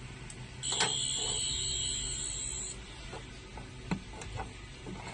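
Toy sonic screwdriver's electronic sound effect: a high, steady buzzing tone lasting about two seconds, followed by a few sharp clicks as it is handled.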